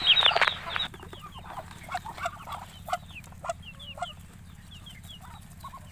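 Poultry calling in short clucks and quick falling peeps. Chopped banana stem rustles as a hand scoops it during the first second.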